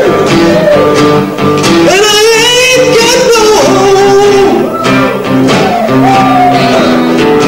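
Blues played live on a strummed acoustic guitar, with a lead melody over it through a hand-held microphone whose notes bend and waver in pitch.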